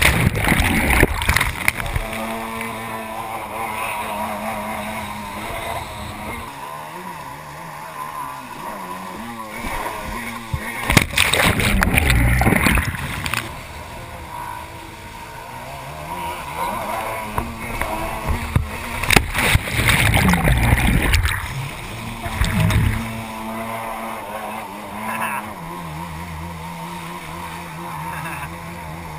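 Yamaha FX-1 stand-up jet ski's two-stroke engine revving up and down, with loud rushes of churning water and splashing as the ski dives under and resurfaces: at the start, about eleven seconds in, and again about nineteen seconds in.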